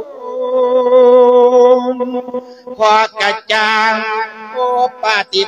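A Thai Buddhist monk chanting a memorial verse that invites the spirit of the deceased, in a melodic, sung style: one long held note for about two seconds, then shorter wavering syllables with brief breaks.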